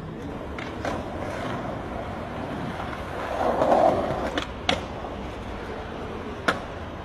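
Skateboard wheels rolling over stone paving, swelling louder in the middle, with several sharp clacks of the board striking the ground.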